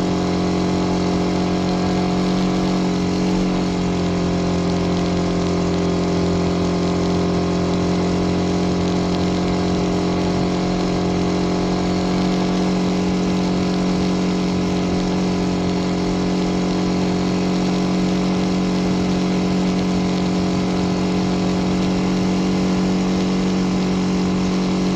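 Car engine holding a steady drone while cruising at constant speed, over continuous tyre and road noise.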